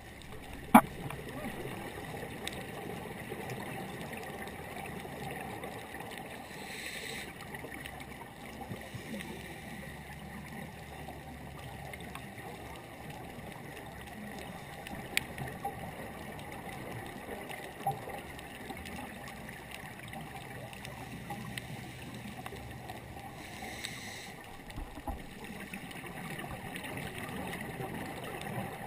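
Underwater ambient noise heard through a camera's waterproof housing: a steady muffled hiss. A sharp click comes under a second in, with fainter clicks later, and there are two brief rushes of noise, about 7 and 24 seconds in.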